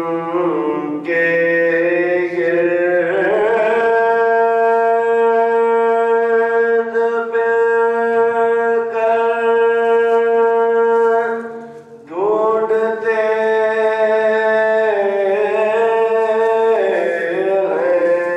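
A man's voice chanting in long, drawn-out held notes, one held for about seven seconds. It breaks off near the middle and comes back in a new phrase, over a steady low hum.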